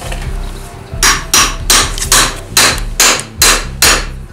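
A hammer striking the top of a drift bar stood in a part clamped in a bench vise. After about a second of lead-in come about nine sharp blows, evenly spaced at roughly two and a half a second, each with a short ring.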